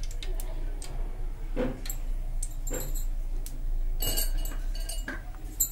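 Light metallic clinks and knocks of a ladle and a non-stick pan on a stove, clustered about four seconds in, over a steady low hum.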